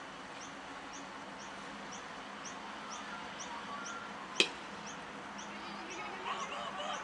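Cricket bat striking the ball once, a single sharp crack about four and a half seconds in, over a high chirp that repeats about three times a second.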